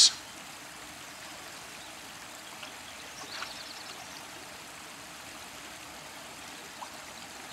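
Steady rush of a shallow river's current flowing past, with a faint brief ticking a little over three seconds in.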